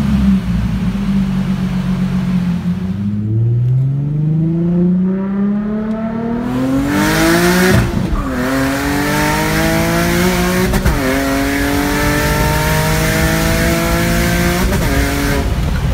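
Turbocharged car engine, running on low boost, accelerating hard. After a few seconds of steady running its pitch climbs and then drops sharply at each upshift: three shifts, about 8, 11 and 15 seconds in.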